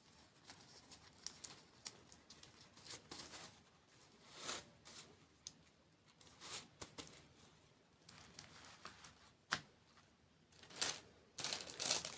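Close-miked eating of desserts: irregular crisp crunches, clicks and crackles from biting and chewing, with a denser, louder run of crunching near the end.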